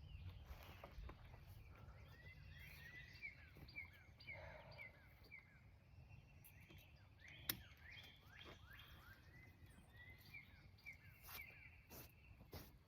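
Faint small birds chirping, short repeated notes, over low outdoor background noise, with a single sharp click about seven and a half seconds in.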